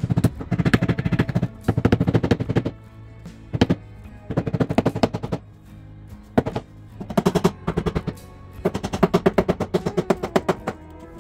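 Hammer with a tape-padded face tapping a carved wooden knob into a wooden cabinet, in quick bursts of about a second each, many taps a second, repeated several times. Background music plays underneath.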